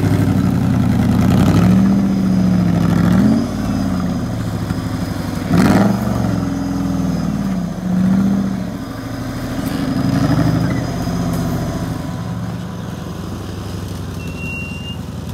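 Off-road buggy's engine revving hard in repeated bursts under heavy load as it climbs a steep muddy bank, the pitch rising and falling several times, then running steadier for the last few seconds.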